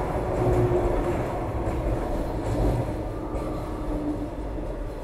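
Alstom Metropolis C751A metro train heard from inside the car while running: a steady low rumble of wheels and running gear that swells about half a second in and again near three seconds, with a faint brief hum about half a second in and again near four seconds.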